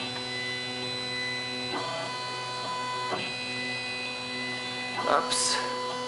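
Stepper motors of a Sieg KX1 CNC machine whining in steady tones as they drive a drag knife along the cutting path through laminated film, the pitch shifting at about two, three and five seconds in as each move changes.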